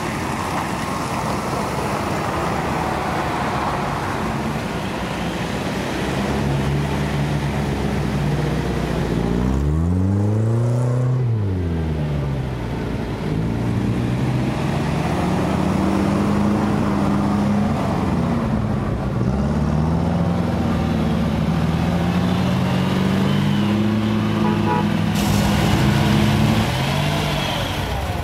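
Unimog 404's petrol straight-six engine pulling through deep mud, revving up and dropping back about ten seconds in, then holding steadier, slowly varying revs under load.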